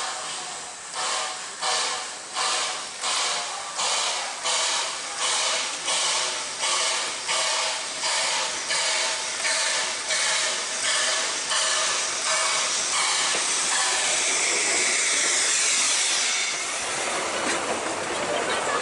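Puffing Billy NA-class narrow-gauge steam locomotive working under steam, its exhaust chuffing about once a second and quickening slightly. Near the end the beats merge into a steady hiss of steam as it passes close, and then its carriages roll by on the rails.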